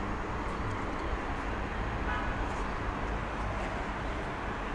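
Steady city street traffic noise: cars and engines running and passing, with a brief faint pitched sound about two seconds in.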